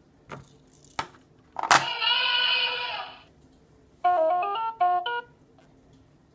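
Fisher-Price elephant toy's electronic sound chip: a couple of clicks as it is handled, a sharp click and a held electronic sound of about a second and a half, then a short jingle of quick stepping notes about four seconds in.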